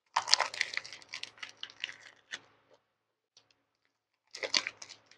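Close-miked biting and chewing of a fresh rice paper roll filled with grilled snakehead fish, rice vermicelli and fresh greens: a run of crisp, crackly crunching, then a pause, then a second short bout near the end.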